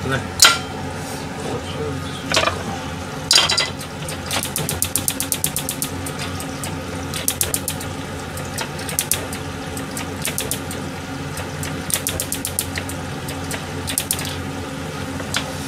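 Breaded chicken cutlets frying in a thin layer of oil under a metal pie plate weighed down to press them: a steady sizzle with crackling spatters. Two sharp metal clatters of the pan and plate come about half a second and three seconds in.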